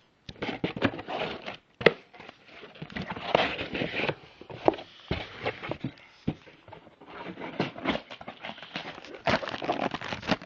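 Packaging being handled: irregular rustling and crinkling, with scattered sharp knocks and taps, as a fitted hat is put back in its wrapping and box.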